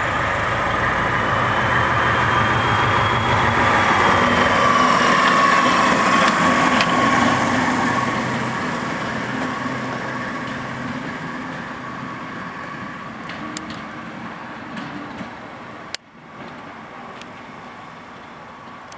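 Class 73 electro-diesel locomotive pulling away under diesel power, its engine working hard with a steady drone. The sound builds over the first several seconds, then fades as the locomotive draws away, with a single sharp click near the end.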